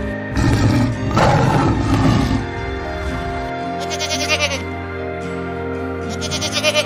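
Goats bleating twice, short wavering bleats about four seconds in and again near the end, over steady background music. A louder rough noise fills the first two seconds.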